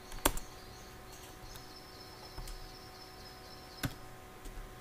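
A few sharp single clicks from operating a computer, one just after the start and one near the end, with a couple of fainter ticks between, over a faint steady hum.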